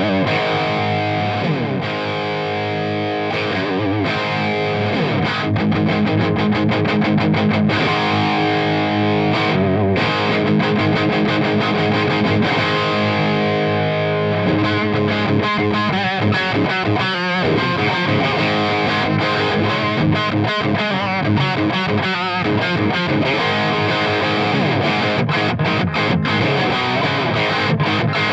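Loud, heavily distorted electric guitar played continuously through a Marshall JCM800 2203 100-watt tube head. The preamp is on 10 with the master barely at 2, feeding a Marshall cabinet with G12-65 speakers. The rock riffs run without a break, with the amp working fine after its repair.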